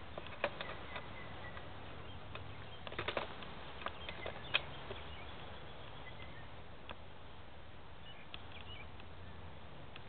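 Quiet outdoor ambience of a steady low hiss, broken by scattered small clicks and rustles, with a cluster about three seconds in. A few faint, short, high bird chirps come near the end.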